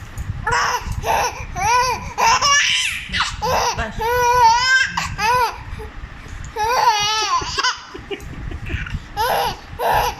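A baby laughing in repeated high-pitched bursts, with a quieter stretch about two-thirds of the way through.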